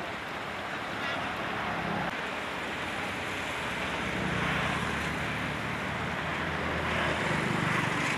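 Steady rushing of a fast river with wind on the microphone. A low rumble swells about halfway through.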